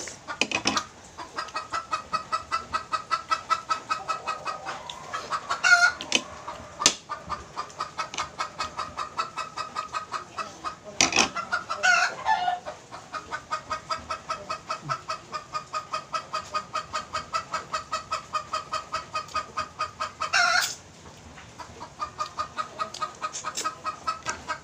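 Chickens clucking in a rapid, even run of about five clucks a second, broken three times by louder calls.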